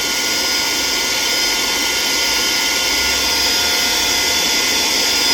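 Saker 3-in-1 cordless handheld mini vacuum running at its low setting: the brushless motor gives a steady, even whine of several held tones over a rush of air.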